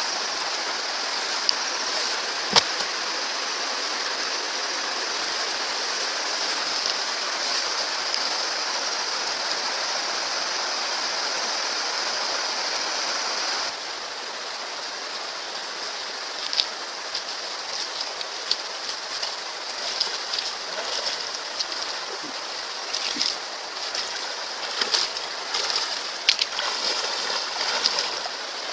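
Rushing stream water, a steady wash. About halfway through it drops abruptly to quieter flowing water broken by irregular splashes.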